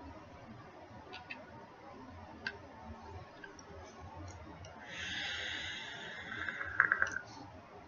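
A draw on an electronic cigarette with a freshly dripped dripping atomizer: an airy hiss of air pulled through the atomizer for about a second and a half, ending in a few sharp crackles about seven seconds in. A few faint ticks of handling the device come before it.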